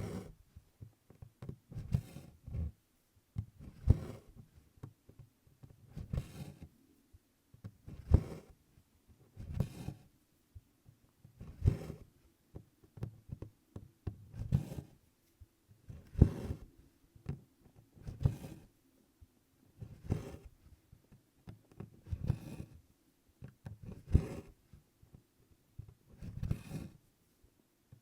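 Needle and embroidery floss being pulled through stiff 24-count Congress cloth in tent stitch, close up: a short dull thud with a brushing rasp about once every two seconds, one stroke per pass of the needle.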